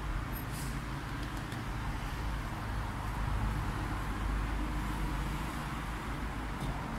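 Steady low rumble with a hiss over it, and a few faint clicks.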